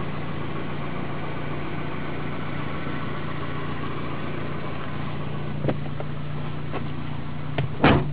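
1999 Chevy Prizm's 1.8-litre four-cylinder engine idling steadily, heard from inside the cabin. A couple of faint clicks come about two-thirds of the way in, and a louder knock near the end.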